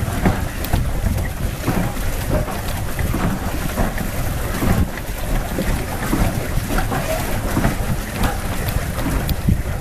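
Wind buffeting the microphone, with water lapping and splashing against a small boat's hull.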